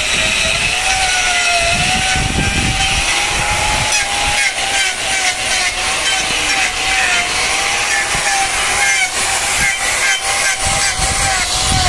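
Electric angle grinder with a hoof-trimming disc running and grinding a bovine hoof: a steady motor whine that wavers slightly in pitch as the load changes, over a rasping hiss, with choppier scraping strokes from about four seconds in.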